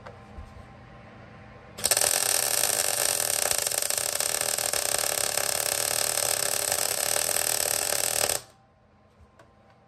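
Electric arc welding on the steel front leg of a Harley 45 springer fork. A single steady, dense crackle starts suddenly about two seconds in, runs for about six and a half seconds and cuts off at once.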